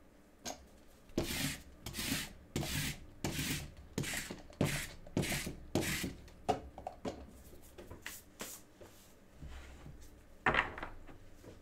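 Trading cards in rigid plastic top loaders being handled and slid against each other, a run of about ten quick rubbing strokes over some six seconds. A sharper, louder scrape follows near the end.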